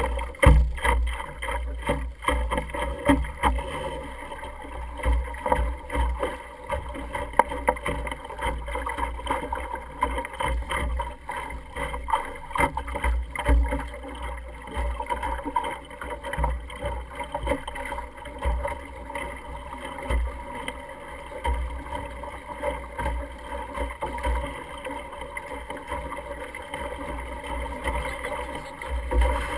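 Wind buffeting the microphone of a camera mounted on an Optimist sailing dinghy under way, a gusty rumble throughout, with water rushing and slapping along the hull. A cluster of knocks comes in the first few seconds.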